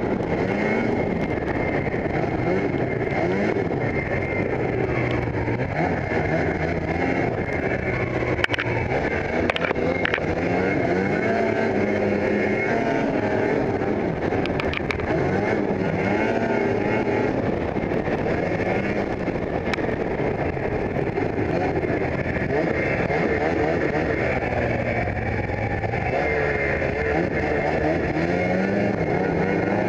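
Ski-Doo snowmobile engine running under way, its pitch rising and falling repeatedly as the throttle is worked.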